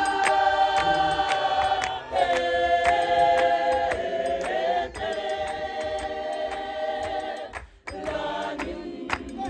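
Choir singing a cappella in held harmony, clap-and-tap gospel style, over a steady beat of sharp hand claps about three a second. The singing breaks off briefly just before the end and starts again.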